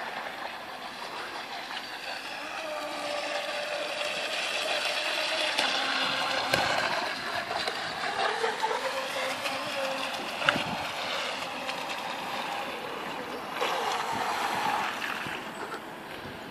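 Radio-controlled scale outboard racer model boat running across the water, its motor whine rising and falling in pitch with the throttle. There are a couple of sharp clicks, the loudest about ten seconds in, and the sound dies down near the end as the boat comes in slowly.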